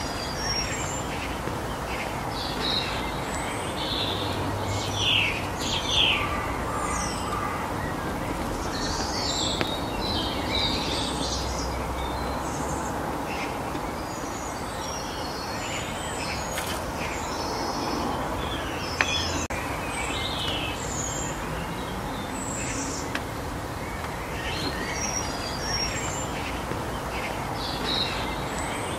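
Songbirds chirping and calling, many short high notes, over a steady background hiss of outdoor ambience.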